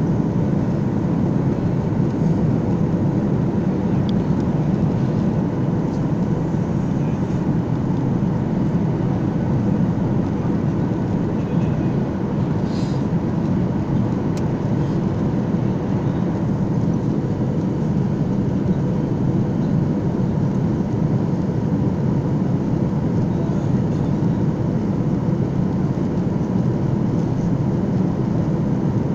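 Steady cabin roar of a Boeing 737 airliner in flight: engine and airflow noise heard from inside the passenger cabin during descent, with a faint steady hum on top.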